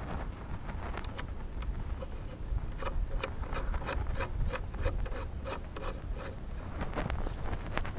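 Propeller nut being spun by hand onto an electric motor's threaded shaft while a thin 13x8 electric propeller is fitted, giving small rubbing clicks. The clicks come about three a second from about three seconds in, over a low background rumble.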